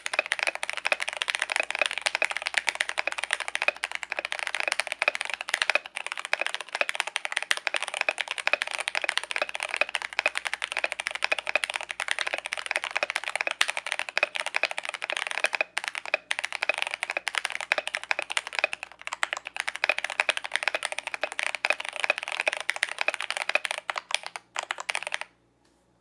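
Fast, continuous typing on a Keychron K8 mechanical keyboard with lubed Gateron Brown tactile switches, a dense stream of keystroke clacks with brief pauses. The typing stops suddenly near the end.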